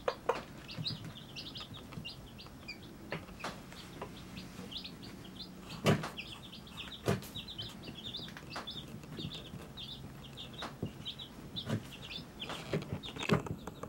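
Baby chicks peeping without a break, many short, high peeps overlapping one another. A few sharp taps sound among them, the loudest about six and seven seconds in.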